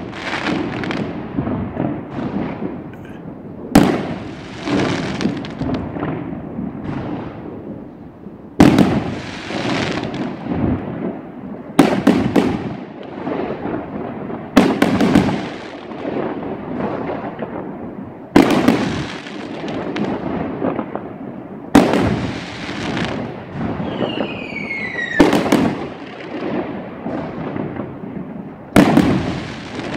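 Aerial firework shells bursting overhead one after another: eight loud bangs, about every three to four seconds, each followed by a crackling tail that dies away. Near the end, one burst is preceded by a falling whistle.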